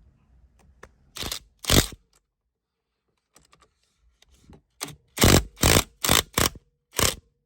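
Ratchet turning an M12 spline socket on the steering wheel's centre bolt to loosen it, clicking in short sharp bursts: two about a second in, then a quicker run of about six from about five seconds in.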